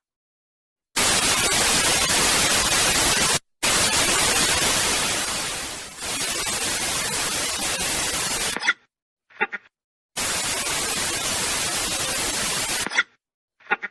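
Static hiss sound effects: several separate stretches of loud, even white-noise static, each cut off abruptly by a brief silence. One stretch fades down around the middle, and a few short blips sit between the later stretches.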